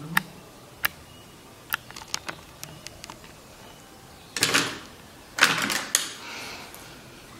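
Small plastic clicks and taps of makeup products being handled, then two short rustling scrapes, about four and five and a half seconds in, as items are moved around.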